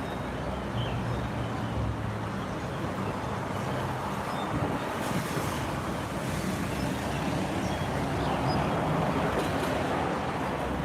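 Steady rumble of road traffic and a vehicle's engine, with a low hum beneath a wash of noise.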